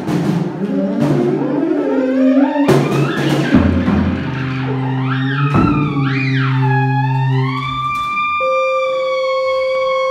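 Live garage-rock band playing: a theremin swoops up and down in pitch and settles on a steady high note near the end, over sustained low notes and scattered drum hits.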